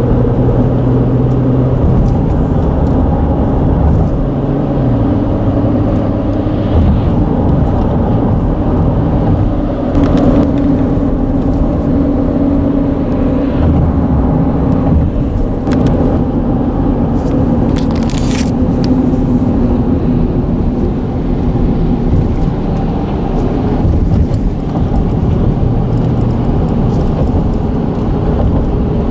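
Road traffic crossing a bridge: a loud, continuous low rumble with humming tones that shift in pitch now and then, and a short hiss a little past halfway.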